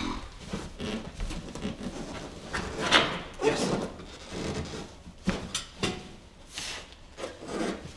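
Irregular scuffs and scrapes of climbing shoes and hands against a wooden training wall and its holds as a climber moves up it, the loudest about three seconds in.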